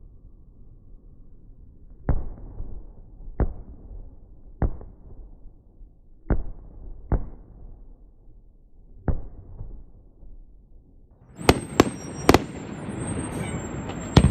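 Fireworks going off: six low, muffled bangs a second or two apart, then about eleven seconds in three sharp, much brighter bangs and a steady crackling hiss.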